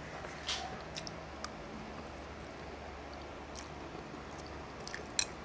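Quiet eating sounds of people eating noodles and pasta: soft chewing with a few faint, short ticks and clicks.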